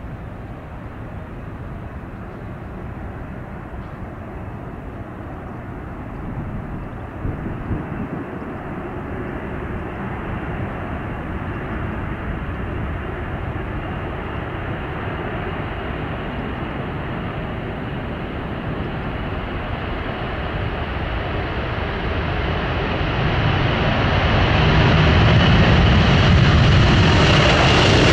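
Four jet engines of a Boeing 747 freighter at take-off thrust during the take-off roll and lift-off. The jet noise grows steadily louder and hissier, and is loudest in the last few seconds as the aircraft climbs away.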